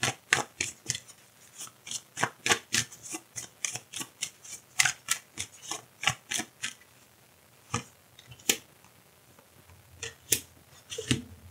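A deck of oracle cards being shuffled by hand: a quick run of short papery snaps and rubs. About seven seconds in it thins to a few single snaps as cards are drawn and laid on the table.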